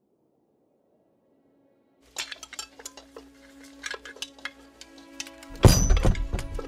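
Kitchen clatter of cooking: pots, pans and cutlery clinking and knocking, starting about two seconds in, with one loud pan clang near the end. A soft held music note runs underneath.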